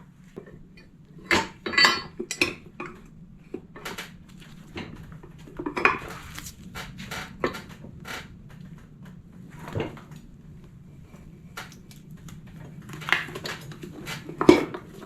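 Metal tools and the steel wheel rim knocking and clinking together in irregular sharp clanks and rattles, some of them ringing briefly.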